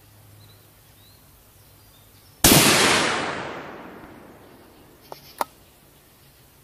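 A single shot from a scoped bolt-action precision rifle about two and a half seconds in, its report dying away over about two seconds. Two short clicks follow about three seconds later.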